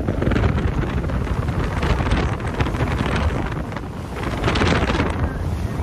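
Wind buffeting the microphone aboard a catamaran under way: a loud, rough, gusting rush, heaviest in the lows, that eases briefly about four seconds in and then swells again.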